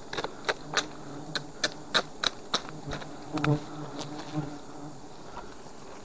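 Honey bees disturbed at their nest buzzing in a low, steady hum that swells a little past the middle. Over the first three seconds a string of about a dozen sharp clicks and snaps sounds over the hum.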